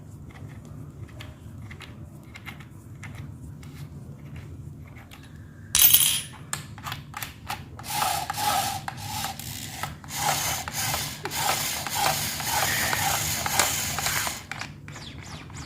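A BUILDSKILL 10 mm electric drill being taken apart by hand. First come light clicks of parts being handled, then a sharp click about six seconds in, then several seconds of rubbing and scraping as the parts are worked loose.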